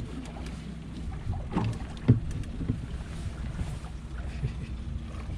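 Boat engine running steadily at idle with wind and water noise, and a sharp knock about two seconds in.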